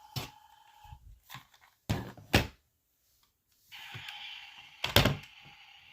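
Plastic toy vehicles being handled and set down on a hard surface: several sharp knocks, the loudest about two seconds in and near five seconds. A toy police car's pulsing electronic siren tone ends about a second in, and a steady electronic tone with a hiss starts near four seconds.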